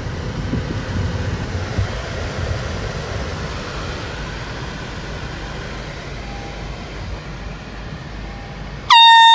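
Steady traffic and wind noise, then near the end a sudden, loud blast from an air horn: one steady high tone with overtones.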